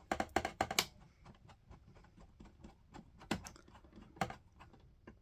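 Small sharp clicks and taps of a screw being fitted into a PC case's power-supply mounting: a quick run of clicks in the first second, then scattered single clicks.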